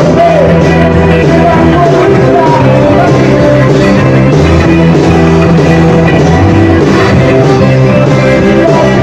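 Live rock band playing loud with electric guitars, bass, drums and keyboards.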